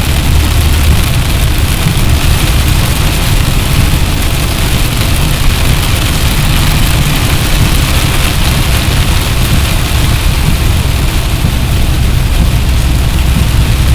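Steady noise of a vehicle driving in rain: a low engine and road rumble under an even hiss of rain and wet tyres.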